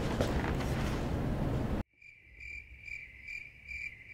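Music cuts off abruptly about two seconds in, and a cricket-chirp sound effect takes over, chirping evenly a little over twice a second against dead silence. It is the stock gag for an empty, silent room.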